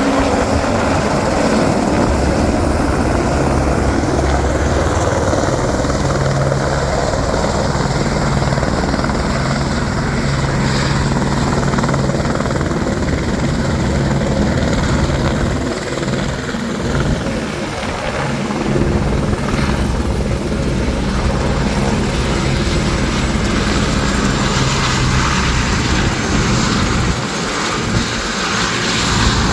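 Helicopter coming in to land, its engine and rotor blades running loud and steady with a continuous rotor beat, easing off briefly about halfway through and again near the end.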